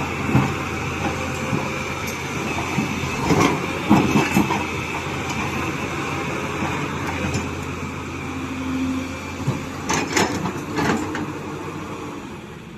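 Hydraulic excavator running steadily, with groups of sharp knocks and clatter about three to four seconds in and again around ten seconds; the sound fades near the end.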